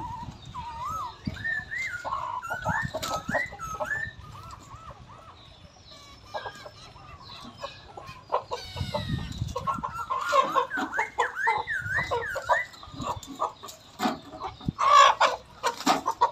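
Domestic chickens clucking and calling in repeated wavering notes, in two spells about ten seconds apart, with scattered sharp knocks between them.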